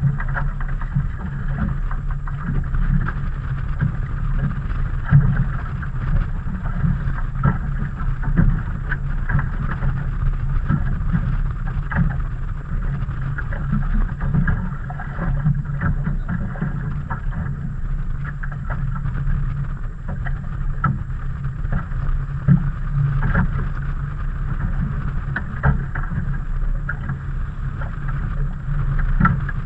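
Steady low rumble of a small outboard fishing boat riding on choppy water, with frequent small knocks and slaps from the hull and gear throughout.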